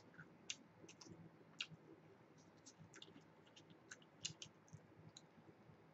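Faint, scattered small clicks and ticks of chewing and of a plastic soda bottle being handled close to the microphone, with a cluster of louder clicks a little after four seconds.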